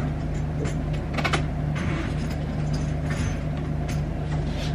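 A steady low hum runs throughout. Over it come a few soft clicks and rustles as a packed suitcase is handled and pressed on.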